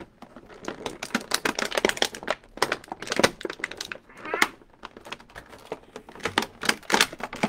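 Clear plastic toy packaging crinkling and clicking in the hands as a toy starship is worked loose from it: a dense, irregular run of sharp crackles and clicks, loudest a little after three seconds and again near four and a half seconds.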